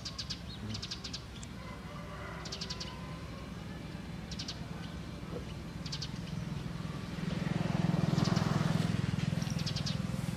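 Rural outdoor ambience: short, high chirping trills every second or two over a low engine hum that grows louder about seven seconds in.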